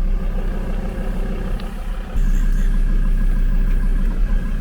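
Car engine running with a steady low rumble, heard from inside the vehicle; it gets louder about two seconds in.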